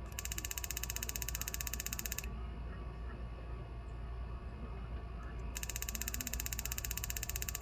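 Fast, evenly spaced mechanical clicking, like a ratchet, in two runs: about two seconds at the start, then again from about two-thirds of the way through, with a quieter stretch between.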